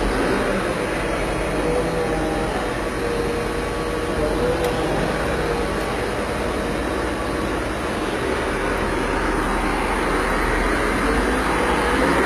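Caterpillar 12M motor grader's diesel engine running steadily while one of its controls is worked. A faint tone wavers a few seconds in, and a pitch sweeps upward near the end.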